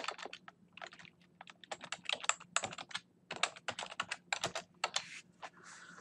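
Typing on a computer keyboard: quick runs of key clicks broken by short pauses, stopping about five and a half seconds in.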